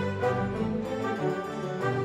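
Instrumental background music with held, overlapping notes.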